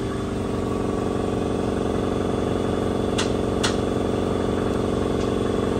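An engine idling steadily, with two light clicks a little past halfway through.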